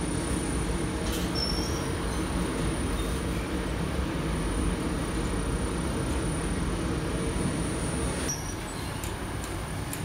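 Dough sheeting and conveyor machine in a mechanised bakery running: a steady machine noise from its motor and rollers, with a faint high whine and a few light clicks.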